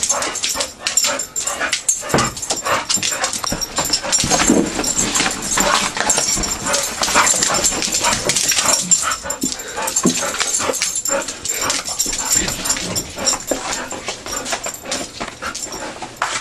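Dogs tearing and chewing a cardboard box, a dense run of crackling and ripping, mixed with the dogs' own yips and whimpers.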